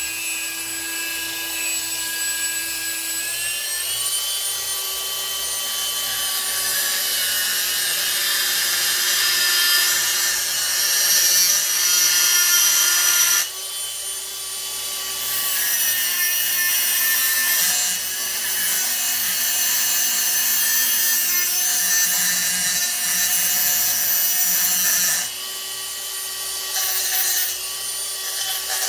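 Handheld rotary tool with a grinding bit running, its motor whining steadily while it grinds down a small model part; the pitch shifts about four seconds in, and the grinding eases off briefly twice.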